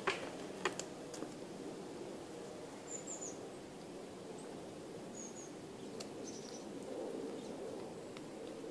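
Outdoor background noise, a steady low rush, with short high bird chirps about three seconds and about five seconds in, and two sharp clicks in the first second.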